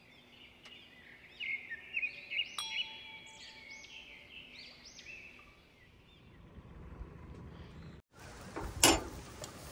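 Small birds chirping in quick, overlapping calls for the first several seconds. After a cut comes a low outdoor rumble of noise, with one brief, loud rush of noise about nine seconds in.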